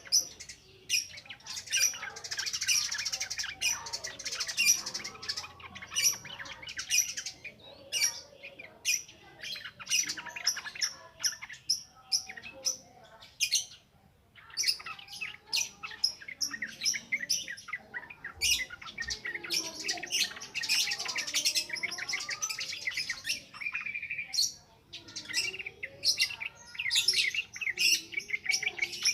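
Yellow-vented bulbul (trucukan) singing in rapid, continuous chattering runs of high notes, the busy 'ngropel' style of song, with a couple of short pauses.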